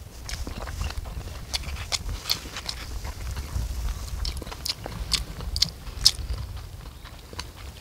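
Mukbang eating sounds: scattered sharp clicks and crunches of chewing and of chopsticks working cup noodles in a paper cup, over a steady low rumble.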